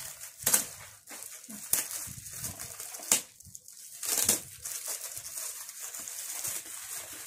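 Shiny metallic foil gift wrap crinkling and tearing as a present is unwrapped by hand, with about four louder rips in the first half.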